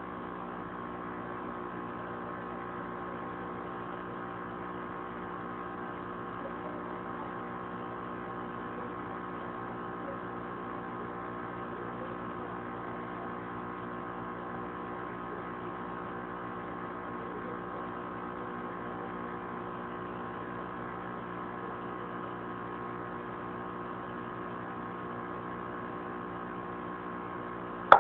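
Steady electrical hum made of several even tones, holding unchanged at a moderate level, with a single sharp click at the very end.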